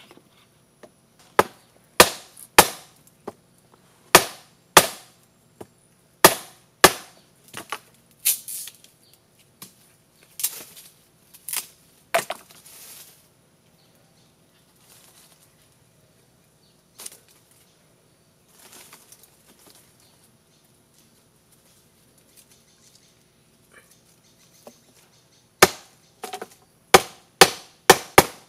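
Knife chopping into green bamboo: a series of sharp strikes, one every half second to second, for the first twelve seconds or so. After a long lull with only faint scattered sounds, a quicker run of strikes comes near the end.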